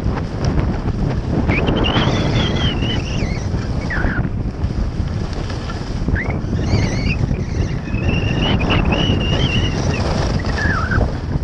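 Wind buffeting the microphone of a skier's point-of-view camera during a fast downhill run, a steady low rumble. A high wavering whistle-like tone rises and falls twice over it.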